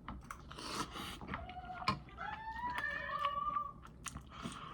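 Eating spicy ramen noodles: wet mouth clicks and smacks of chewing, with breathy slurps.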